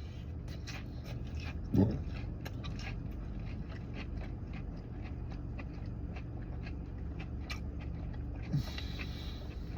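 Biting into and chewing crispy breaded fried mozzarella sticks: many small crunches over a steady low hum. A short voiced "mm" about two seconds in, and another faint one near the end.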